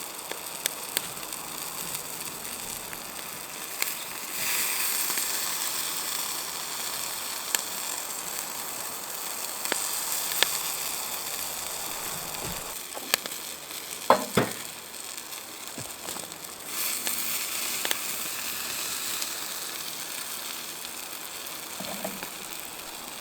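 Sausages sizzling on a grill over a Firebox wood-burning stove, the wood fire crackling with small pops. The hiss swells twice, and a sharp knock comes about 14 seconds in.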